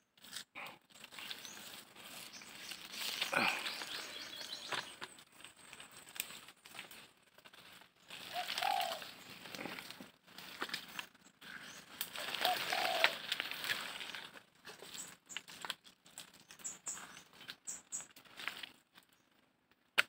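Leaves and branches rustling and brushing as someone pushes through dense brush on foot, in uneven bursts with short pauses.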